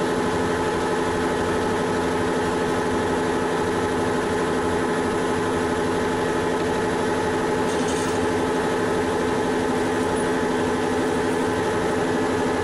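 Manual metal lathe running steadily with the spindle at about 850 rpm. Its gear train gives an even hum made of several steady tones, set up for drilling a 6 mm hole.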